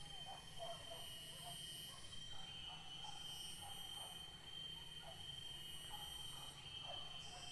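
Insects trilling in the undergrowth: a high thin drone that comes in stretches of about a second with short breaks, over a steady lower whine.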